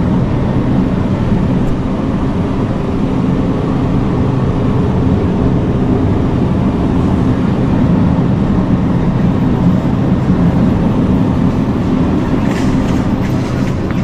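Steady low mechanical hum of supermarket refrigerated display cases and store ventilation.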